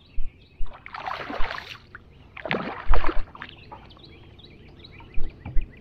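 A hooked largemouth bass splashing and thrashing at the surface beside a boat, with two loud splashes about a second and about three seconds in. Birds chirp faintly throughout.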